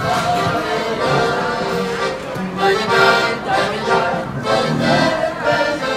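Piano accordion playing a tune, with people talking in the background.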